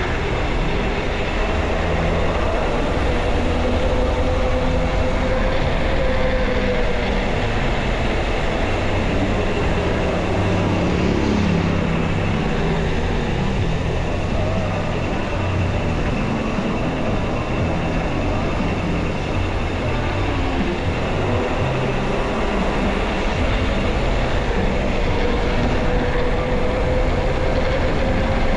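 Steady, loud rumbling ride noise from a moving bike: wind buffeting the microphone over road noise. A faint tone rises and falls a few seconds in and again near the end.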